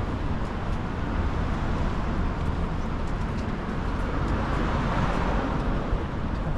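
Steady road-traffic noise from vehicles crossing the bridge roadway, with a low rumble throughout. The traffic noise swells a little about five seconds in, as a vehicle passes.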